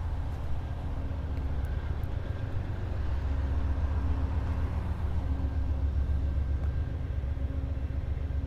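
Steady low rumble of vehicle engines on a town street, with a faint engine hum coming and going.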